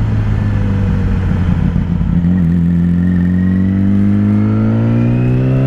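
Sportbike engine under way, holding a steady pitch for about two seconds and then revving up gradually as the bike accelerates.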